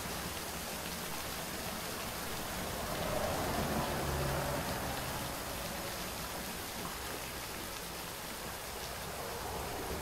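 Small waterfall dropping as a thin stream off a rock ledge into a shallow pool: a steady splashing hiss like rain, swelling a little three to five seconds in.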